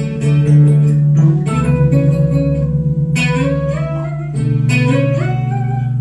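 Bass guitar played solo: held low notes ring under higher plucked notes, and in the second half melodic lines climb step by step.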